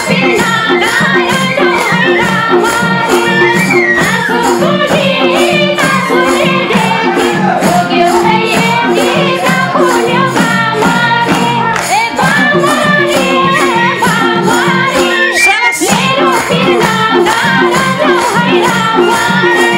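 Nepali dohori folk band playing an instrumental break between sung verses: madal hand drums keep a fast, even beat under a melody on bansuri flute and sarangi.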